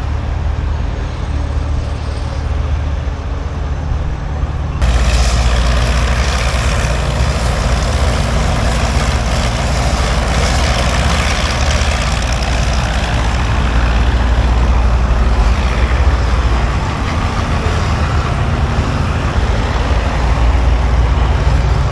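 Heavy diesel engine of a piece of antique heavy equipment running steadily. About five seconds in, the sound jumps suddenly louder and fuller, then holds steady.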